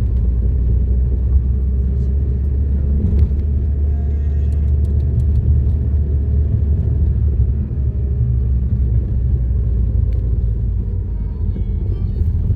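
Steady, loud low mechanical rumble of a machine running at an even pace.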